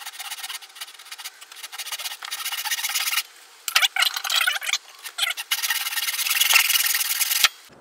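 Backsaw cutting through a small softwood block on a bench hook: quick rasping back-and-forth strokes, broken by two short pauses a little after the middle, then stopping abruptly near the end.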